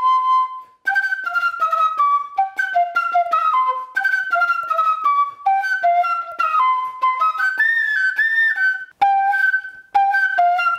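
Pífano (Brazilian bamboo transverse fife) playing quick descending runs in which each note jumps back and forth between the first and second octave, an octave-leap exercise for lip agility. The runs break off briefly about a second in and again about nine seconds in.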